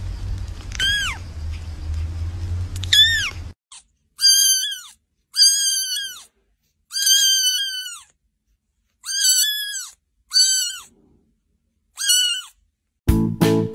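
Kittens mewing: two high calls that rise then fall, then after a cut six more high meows from another kitten, one every second or two. A sudden noisy sound starts near the end.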